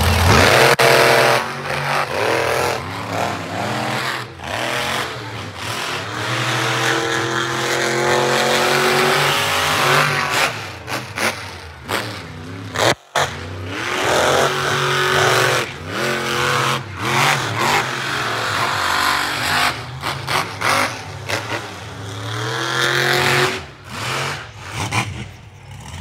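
Monster truck engines revving hard at full throttle, pitch climbing and falling again several times as they race, with a brief dropout about halfway.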